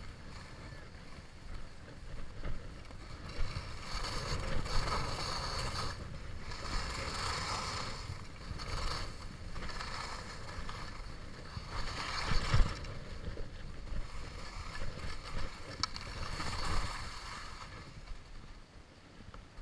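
Skis hissing and scraping over packed snow in a series of turns, rising and falling in swells, over wind rumbling on the camera microphone. There is one sharper thump past the middle, and it all quietens near the end as the skier slows.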